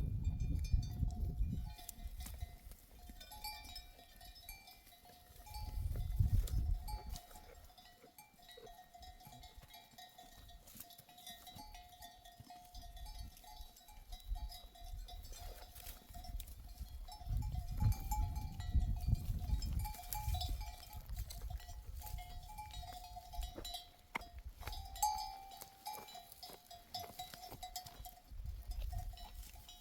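Bells on a grazing flock of sheep clinking and ringing without a break as the animals move. Swells of low rumble come and go a few times.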